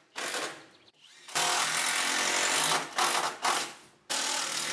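Cordless drill running in bursts into wooden wall framing: a short burst, then a run of about a second and a half, two quick blips, and another long run near the end.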